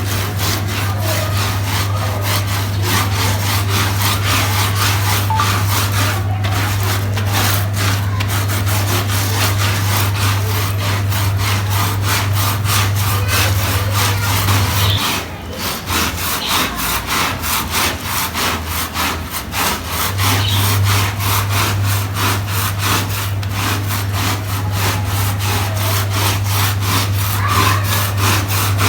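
Stiff brush scrubbing a soaked, heavily soiled carpet in rapid, repeated back-and-forth strokes, over a steady low machine hum that drops out for a few seconds midway.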